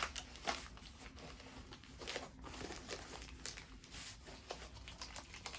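Crinkling and rustling of a mailed package being handled, with scattered light taps and clicks.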